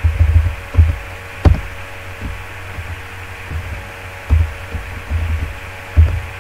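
Computer keyboard being typed on, its keystrokes picked up as irregular dull thumps with a few sharper clicks, over a faint steady electrical hum.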